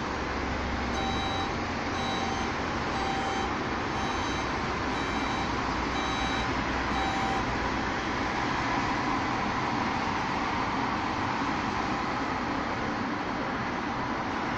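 Rotopress rear-loading garbage truck running, its reversing alarm beeping about once a second, some seven beeps, then stopping about halfway through while the engine keeps running.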